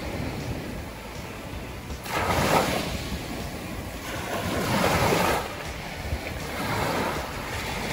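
Small waves breaking and washing up a pebbly beach. The wash swells and fades every two to three seconds and is loudest about two and a half and five seconds in.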